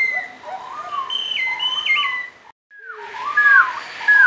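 Several overlapping bird-like whistles: short two-note calls and up-and-down glides at different pitches, repeating over and over. The sound cuts out completely for a moment a little past the middle, then resumes.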